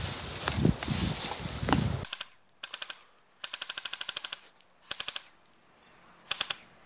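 Airsoft guns firing in short full-auto bursts, a rapid run of sharp cracks at about a dozen shots a second, repeated several times. The first two seconds hold loud rustling, handling-type noise before the shooting.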